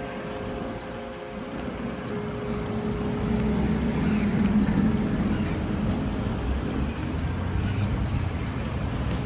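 Road traffic: motor vehicles running along a city street, the engine and tyre rumble swelling as a vehicle draws close about four seconds in.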